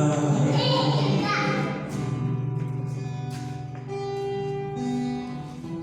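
Background worship music: sustained chords with a guitar.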